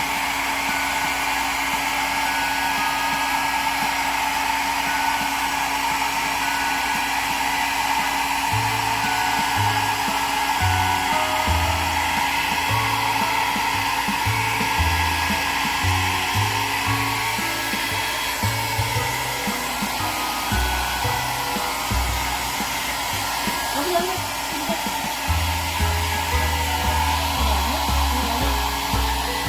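Hair dryer running steadily, drying a pet's coat after a bath, with a constant blowing hiss.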